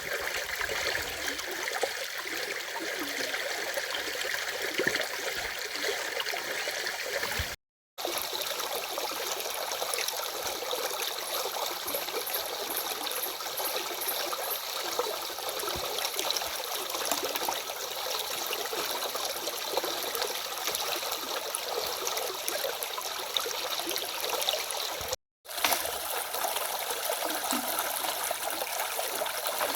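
Stream water flowing steadily, an even rushing and trickling. The sound cuts out completely for a moment twice, about a third of the way in and near the end.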